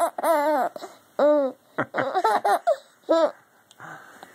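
A young child laughing in several short, high-pitched bursts of giggles, the last and shortest a little after three seconds in.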